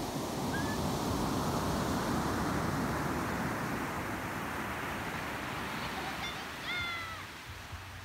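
Ocean waves breaking and washing up a pebble beach, the surf swelling and then easing off. A short high call about half a second in, and a quick run of short, rising-and-falling high calls near the end.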